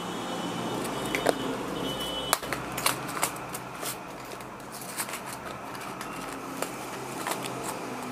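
Plastic boxes and packets of fishing hooks being handled: scattered light clicks and rustles over a steady low hum.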